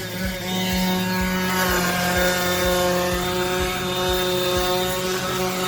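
DeWalt DCW210 brushless 20V cordless 5-inch random orbit sander running steadily at full speed while sanding, a steady motor whine at one pitch.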